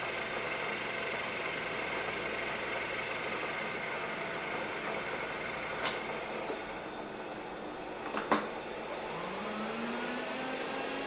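Bridgeport milling machine under power feed, its half-inch two-flute end mill cutting a keyway in a shaft: a steady spindle and cutting noise. A sharp click comes about eight seconds in, with a fainter one before it, and then a whine rises in pitch.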